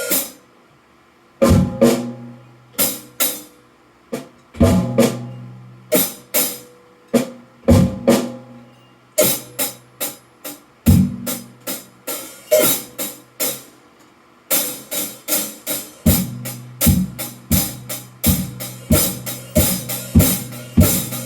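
Drum kit played freely: single strikes and short groups with pauses between them, the low drums ringing on, then picking up into a faster, steadier run of hits about two-thirds of the way through.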